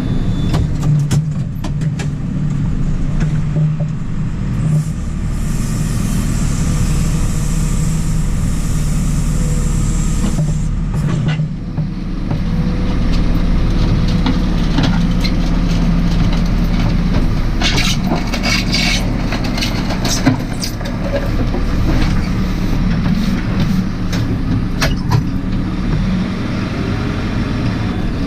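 JCB 4CX backhoe loader's diesel engine running steadily under work, with scattered knocks and clanks and a couple of brief hissy patches.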